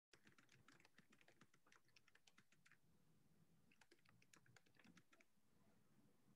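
Faint typing on a computer keyboard: two runs of quick, irregular keystrokes with a pause of about a second between them.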